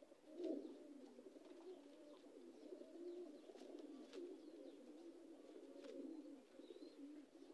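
Domestic pigeons cooing faintly, low overlapping coos from several birds, with a few faint ticks.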